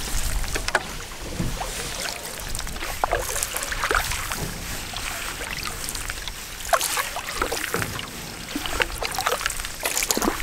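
Canoe paddles dipping and pulling through calm water: small splashes and drips from the strokes, coming at an uneven pace, over a soft steady background hiss.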